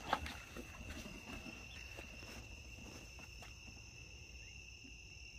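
Crickets trilling steadily, one unbroken high-pitched tone, with a few soft clicks and knocks from handling near the start.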